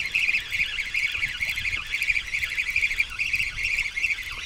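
Spinning reel on a feeder rod being wound steadily, a fast high-pitched buzzing whirr, as a hooked fish is reeled in.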